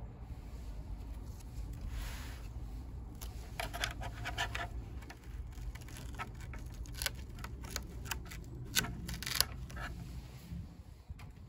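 Hands handling wiring, connectors and the plastic shell of a Pride Go Go Elite mobility scooter's battery box: a run of small clicks, scratches and rubs, busiest in the middle, over a steady low rumble.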